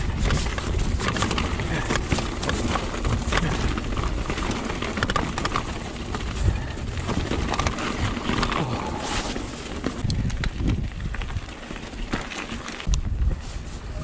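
2021 Giant Trance mountain bike descending a rocky trail: tyres rolling over loose rock and the bike rattling with many small knocks, over a steady rumble of wind on the microphone. It eases off a little near the end.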